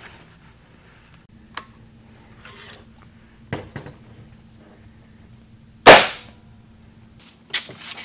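Umarex Gauntlet .22 PCP air rifle firing once about six seconds in, a single sharp, loud shot that launches a wooden skewer as the projectile. A few faint clicks come before and after it.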